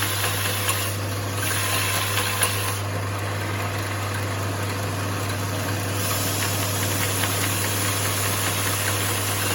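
Electric motor of a 2 x 72 belt grinder running steadily: a constant low hum under the hiss of the moving belt, with the hiss brightening for stretches.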